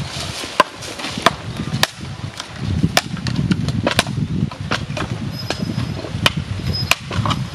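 A large knife chopping into a wooden stick, sharp single knocks about one to two a second at an uneven pace.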